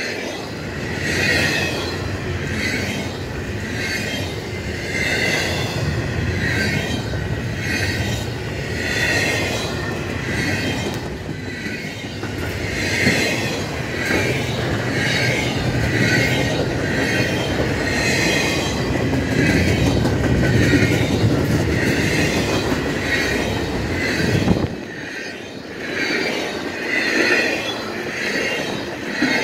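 Freight cars of an intermodal train rolling past, with a low rumble and a high-pitched squeal of the wheels that pulses about once a second. The low rumble drops away suddenly about 25 seconds in, while the squealing pulses go on.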